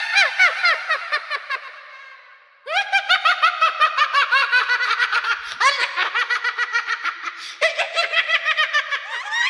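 A witch's cackle: high-pitched, rapid 'ha-ha-ha' laughter in several long runs. Each run starts loud and trails off, with a short break about two seconds in and fresh runs about three, six and eight seconds in.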